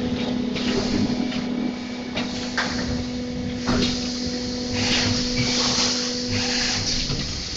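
Injection moulding machine with an in-mould labelling robot cycling: a steady machine hum with repeated short bursts of hissing and clunks as the mould and the robot's take-out head move.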